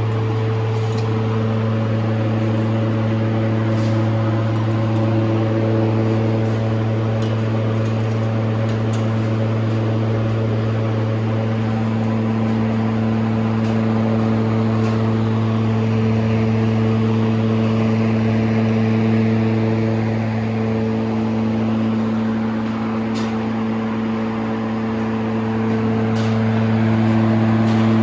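SIVEXOR 16-inch movable fan with four metal blades and an enclosed motor, running steadily: a low electric motor hum under the rush of air.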